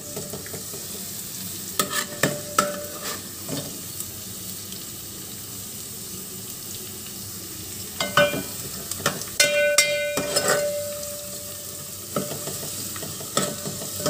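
Chopped garlic and cumin seeds sizzling in hot oil in a metal karahi, with a steel spoon stirring and scraping the pan and clinking against it several times, some clinks ringing briefly.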